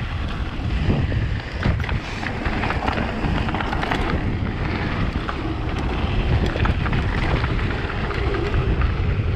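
Electric mountain bike riding down a dirt and stone trail: steady wind buffeting the camera microphone over the rumble of knobbly tyres, with frequent clicks and clatter from the bike and stones.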